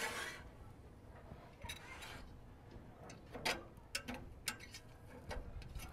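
Scattered light clicks and knocks of cooking gear being handled, a handful spread across the middle and end, after a brief hiss at the very start.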